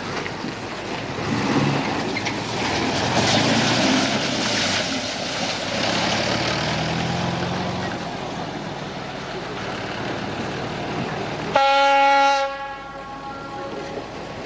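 Narrow-gauge diesel train running past, its engine and wheels heard under wind on the microphone. About twelve seconds in, the locomotive sounds one horn blast of about a second, the loudest sound.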